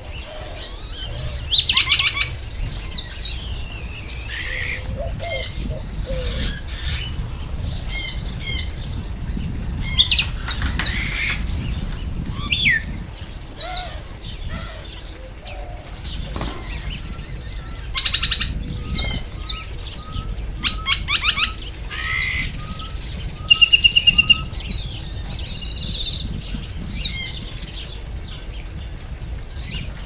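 Male great-tailed grackle calling: a varied string of rising whistles, harsh notes and fast clicking rattles, the loudest rattle in the second half.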